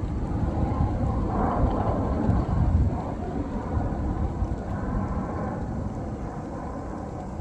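Low rolling rumble of thunder, loudest over the first three seconds and then slowly dying away.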